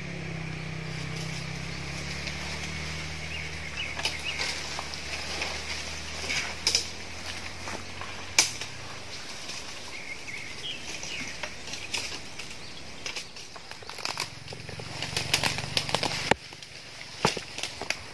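Leaves and branches rustling, with scattered sharp snaps and knocks, while someone climbs a tree. A low hum sits under it in the first few seconds and again shortly before the end.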